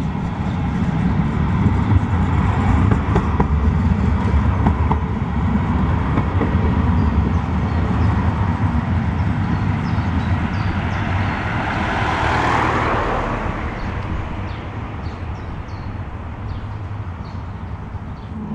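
CAF Urbos 3 low-floor tram running past on street tracks: a low rumble of wheels and running gear, swelling to a hissing peak as it passes about twelve seconds in, then fading as it pulls away.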